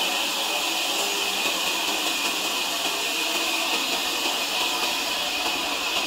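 Sawmill saw running with a steady high hiss.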